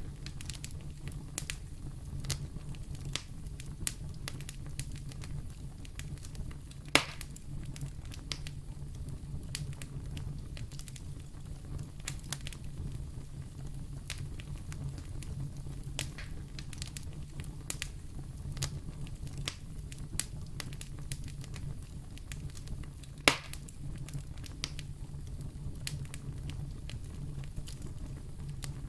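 Fire crackling in a fireplace: a steady low rumble with frequent small crackles, and two louder sharp pops, one about a quarter of the way in and one near the end.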